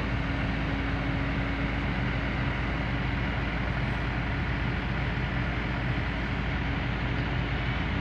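Kobelco SK200-10 excavator's diesel engine running steadily at idle, with a faint steady hum that fades out about two and a half seconds in.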